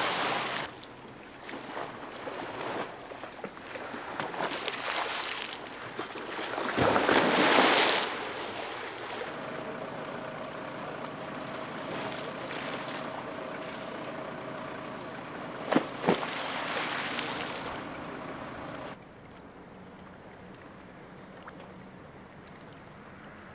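Storm-surge waves crashing against a seawall and splashing over a flooded promenade, in gusty wind, twice loudly, once at the start and again about seven seconds in. Later a steady engine hum runs under the wind, with two sharp knocks, before the sound drops to a quieter wash of water.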